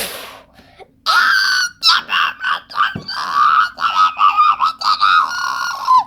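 A high-pitched voice screaming without words for about five seconds, after a brief hiss at the start.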